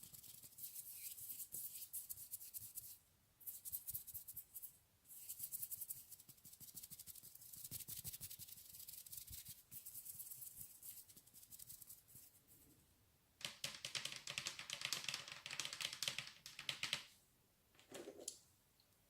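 Close-miked rapid fine crackling and scratching, with short breaks about 3 and 5 seconds in and a louder stretch from about 13 to 17 seconds, then a soft knock near the end.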